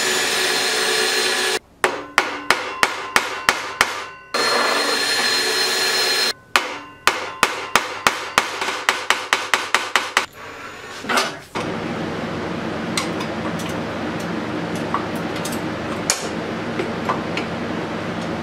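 Cordless drill working at a stripped hex-head screw in a DeWalt planer's cutter head, trying to dig it out. Spells of steady motor whirring alternate with two runs of sharp rapid knocking, about four knocks a second, and a longer steady run follows near the end.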